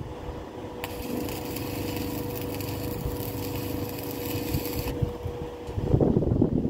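Arc welding on 2 mm steel flat bar: a steady crackling hiss that starts about a second in and cuts off about four seconds later. Low wind rumble on the microphone throughout, louder near the end.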